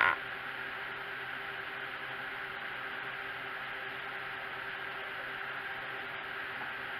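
A brief loud sound cuts off at the very start, then a steady hiss with a faint low hum: constant background noise.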